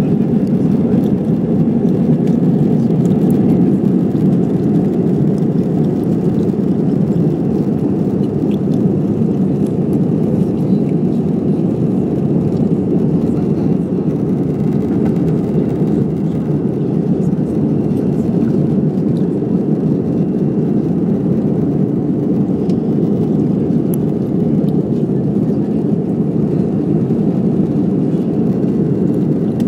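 Steady, loud low rumble of a jet airliner heard from inside the passenger cabin: engine and airflow noise holding an even level, with no spool-up or change in pitch.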